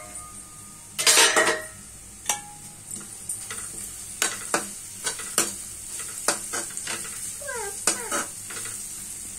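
A steel lid comes off a kadai with a loud clatter and a burst of sizzling about a second in. A steel slotted spatula then scrapes and clinks against the pan in a quick irregular rhythm while a bamboo-shoot stir-fry sizzles.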